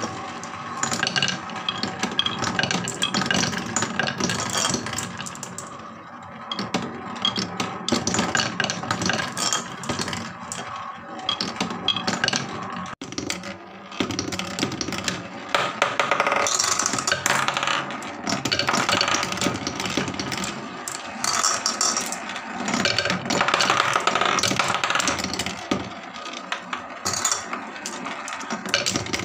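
Glass marbles rolling and clattering down wooden HABA marble-run tracks and dropping through wooden blocks: a continuous rattling with many small clicks and knocks, louder in stretches.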